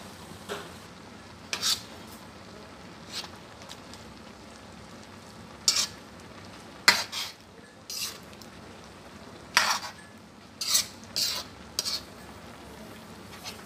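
Metal spoon stirring a simmering cream sauce with shrimp in a stainless steel wok, scraping and clinking against the pan in about a dozen sharp, irregular strokes, some in quick pairs. Under it the sauce keeps up a steady low sizzle as it simmers down.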